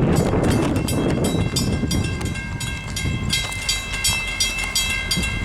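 Mechanical railroad crossing bells ringing with rapid, even strikes, about four a second, as the crossing is activated for an approaching train. A low rumble from the train runs underneath.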